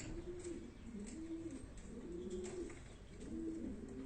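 Domestic pigeons cooing: low, rolling coos repeated one after another and overlapping, from more than one bird.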